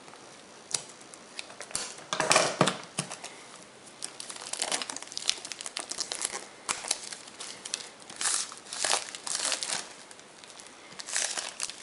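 Cellophane wrapping being peeled off a boxed phone and crumpled by hand: irregular crinkling and crackling in uneven bursts, with a few louder rustles.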